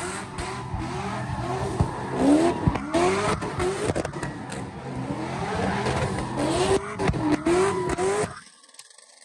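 Cars doing donuts: engines revving hard in repeated rising surges, about two a second, over tyres spinning and screeching on pavement, with scattered sharp cracks. The sound drops away abruptly near the end.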